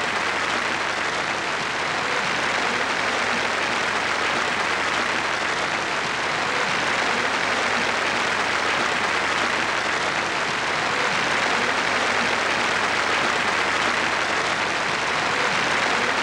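Theatre audience applauding: a dense, steady wash of clapping.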